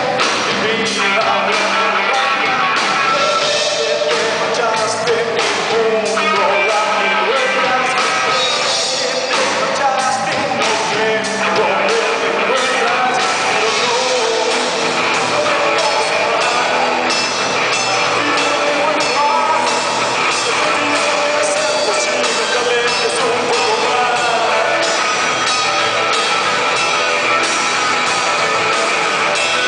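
Live rock band playing a song on electric guitars and drums, at a steady level throughout.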